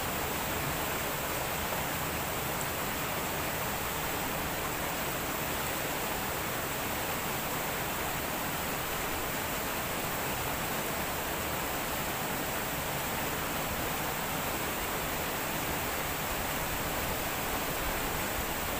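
A river rushing steadily over rocks, an even hiss that does not change.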